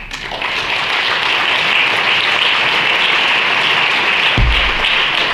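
Audience applauding steadily, with a short low thump about four seconds in.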